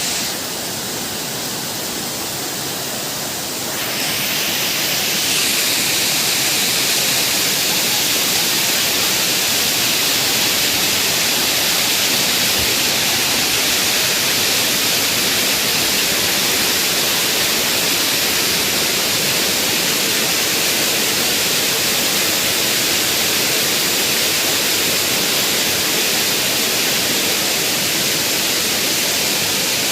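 Waterfall's falling water, a steady loud rush that grows louder and brighter about four seconds in, then holds steady.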